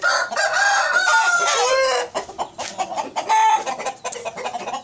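An Aseel rooster crowing: one long call of about two seconds, then shorter clucking calls.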